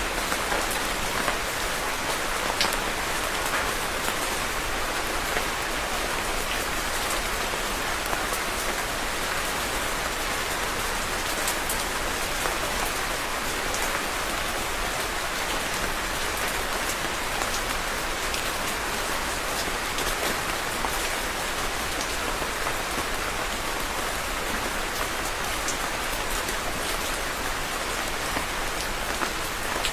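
Steady rain falling on a surface, an even hiss with scattered individual drop ticks.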